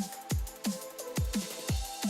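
Electronic background music: a heavy kick drum hits about twice a second, with sharper percussion between the kicks over held synth notes.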